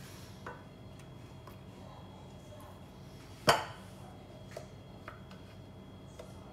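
Kitchenware knocking and clinking: a few light clicks and one sharp knock about three and a half seconds in, over a steady low hum.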